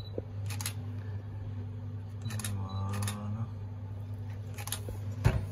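Steady low hum of a restaurant kitchen, with a few light clicks and one sharper knock near the end.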